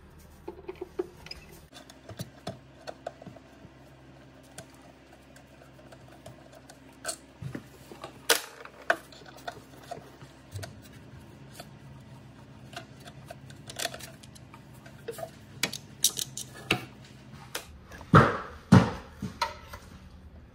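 Hand tools clicking, clinking and tapping against the metal parts of a snowmobile engine during disassembly, in scattered strokes. A louder pair of clunks comes near the end.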